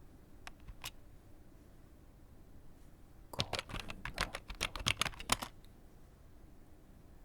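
Computer keyboard typing: two single keystrokes just under a second in, then a quick run of keystrokes lasting about two seconds in the middle.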